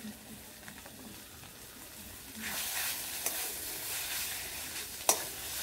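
Onion and ground-spice masala frying in oil in a metal karahi, sizzling quietly at first. About two and a half seconds in, the spatula starts stirring it and the sizzle and scraping get louder, with one sharp clink of the spatula against the pan near the end.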